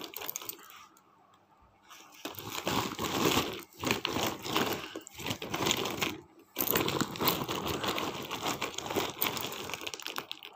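Woven plastic sack rustling and crinkling as a gloved hand stirs through lumps of roasted clay inside it, with the chunks clicking and scraping against each other. It starts about two seconds in and goes on in spells with short pauses.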